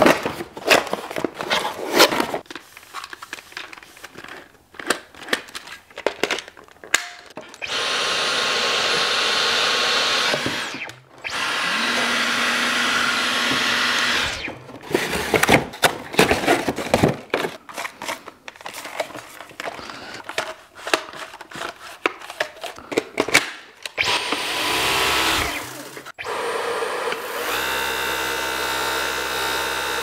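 Cardboard packaging being handled, with repeated clicks and rustles, broken by several steady stretches of a few seconds each of the Dyson V15 Detect cordless vacuum's motor running with a high whine. About 26 s in, one run winds down with a falling pitch.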